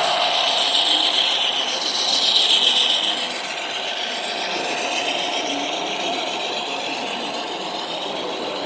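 Model train running along the track, a gritty whirring and rubbing of small motor and wheels on rail. It is loudest in the first three seconds, then eases off to a steadier, slightly quieter whir.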